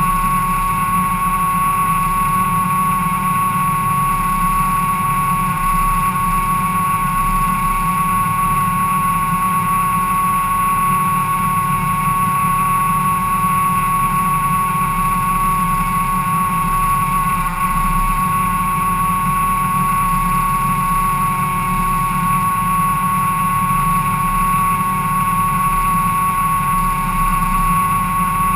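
Ford Cortina race car engine idling steadily, heard from inside the stripped cabin, with a constant high whine over the low drone.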